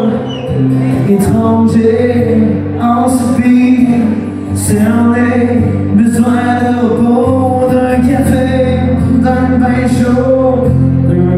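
A live band playing a country song: a man singing over acoustic and electric guitars, fiddle and drums.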